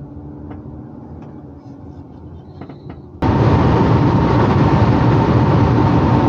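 Camper van running inside the cab, first a moderate low engine hum at low speed with a few light clicks, then, about three seconds in, an abrupt switch to loud road and wind noise of the van at highway speed with a faint steady whine in it.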